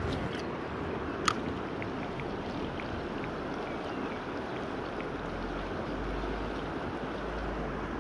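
Shallow river current running steadily over rocks, with one sharp click about a second in.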